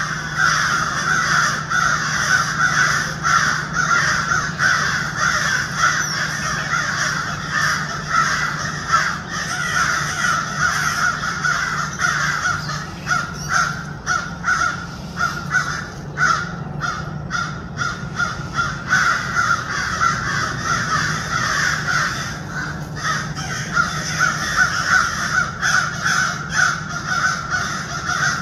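Animal calls repeated rapidly and without a break, over a steady low hum.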